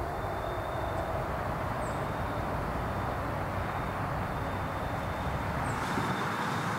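Steady rushing of wind through the forest canopy, with a low rumble that drops away about six seconds in.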